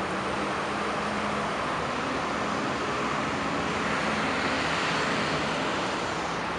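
Steady city traffic noise, with a Nova Bus LFS low-floor city bus passing close; its engine and tyre noise swell about four seconds in and fade again near the end.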